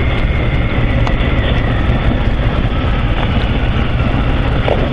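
Adventure motorcycle riding along a dirt track: a steady rumble of engine, tyres on the dirt and wind rush over the handlebar-mounted microphone.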